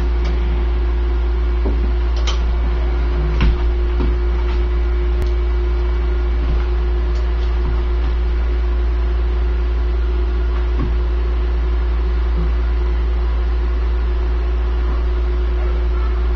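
Steady low electrical hum with a faint higher whine held over it, and a few light clicks and taps as small parts are handled, the loudest about three and a half seconds in.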